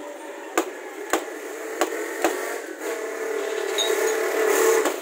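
Knife chopping boiled pork intestine on a plastic cutting board, four sharp chops in the first half. From about three seconds in, a passing motor vehicle's engine hum rises, loudest near the end.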